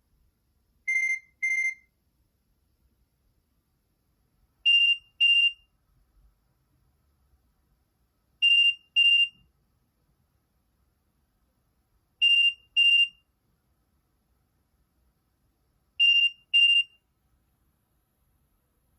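Nokia 6260 mobile phone playing a simple beeping alert tone: short double beeps, the first pair lower in pitch, then four higher-pitched pairs repeating about every four seconds.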